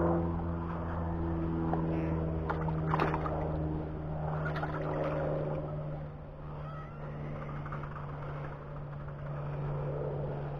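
A steady low engine drone with an even hum, easing a little after about six seconds, with a few short clicks and rustles between two and five seconds in.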